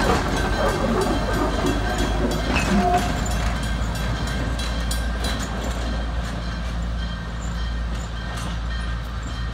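Train of open-air passenger cars pulled by a small Plymouth diesel locomotive rolling past and moving away. A steady low rumble with scattered clicks of steel wheels on the rails grows gradually fainter.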